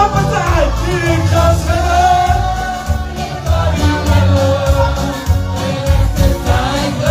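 A man singing long, wavering held notes into a microphone over music with heavy bass.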